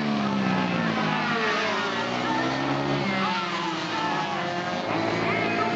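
Several small two-stroke minimoto racing engines revving hard together, a high buzzing pack whose pitch falls and rises again as the bikes go through a corner.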